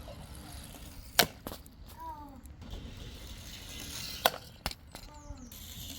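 Toy cars clacking against the track or each other: sharp clicks in two pairs, about three seconds apart, with two short squeaks that bend in pitch in between, over a low steady rumble.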